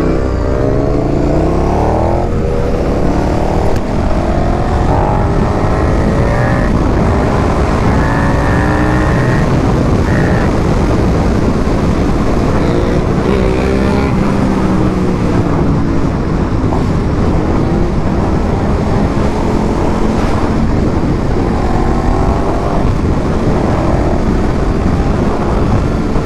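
KTM 1290's V-twin motorcycle engine under way, its pitch climbing under throttle and dropping back at each gear change several times, over a steady rush of wind and road noise.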